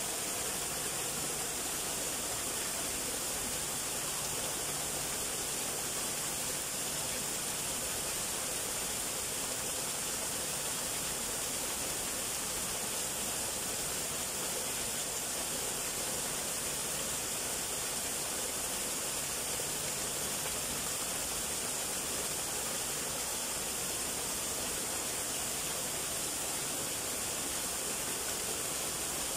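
Small landscaped waterfall, two thin streams splashing over rocks into a shallow pool, making a steady, high hiss of falling water.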